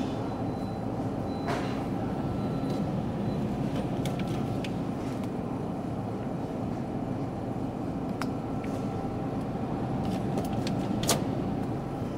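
Supermarket background noise: a steady low rumble, with a few faint clicks and knocks.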